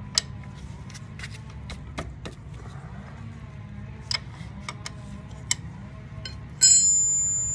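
Scattered light metal clicks as a 16 mm wrench is fitted onto a motorcycle's primary drain plug, then a loud metallic clank near the end that rings on with a high, slowly fading tone.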